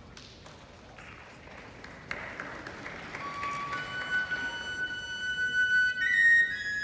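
A flute starts playing after a quiet pause, with long held notes from about three seconds in that step upward in pitch. A soft hiss of noise rises just before the notes begin.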